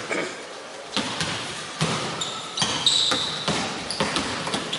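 Basketballs bouncing on a hardwood court: several separate thuds at irregular spacing, with a few short high-pitched sneaker squeaks in the middle.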